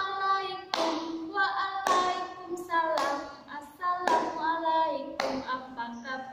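A woman singing a children's greeting action song, with a sharp clap of the hands about once a second.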